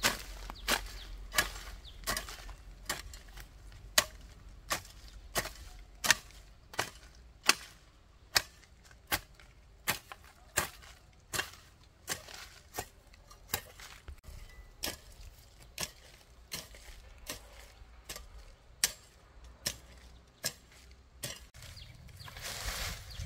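Hoe blade chopping into weedy garden soil in steady, regular strokes, a little more than one a second, which stop near the end.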